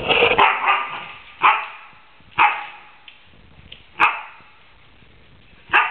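A dog's growling vocalisation tails off, then the dog gives four short, sharp barks spaced one to two seconds apart.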